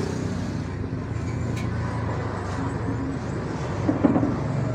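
Steady low background rumble, like distant traffic, with a short voice about four seconds in.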